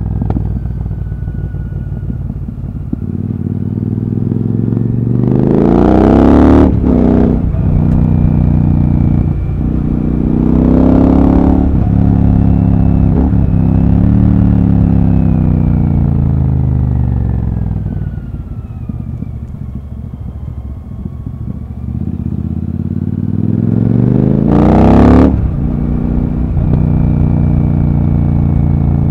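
Royal Enfield Super Meteor 650's parallel-twin engine pulling as the motorcycle is ridden: the engine note climbs in pitch through several quick upshifts in the first half, falls as the throttle is eased off, then climbs again to another shift near the end.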